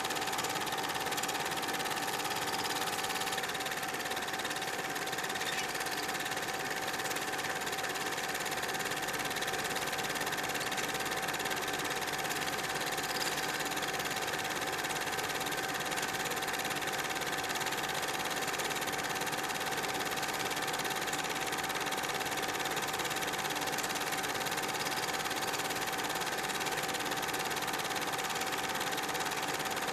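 Super 8 film projector running: a steady mechanical whir with a constant tone, unchanging throughout.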